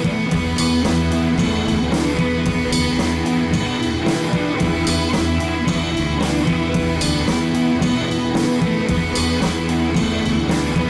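Background music with guitar over a steady drum beat.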